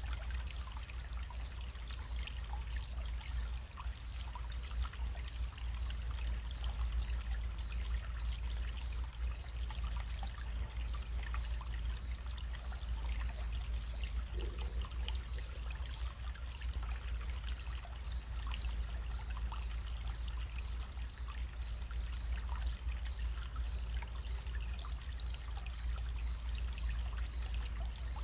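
Small running stream trickling steadily, full of small quick splashes and plinks, over a steady low rumble.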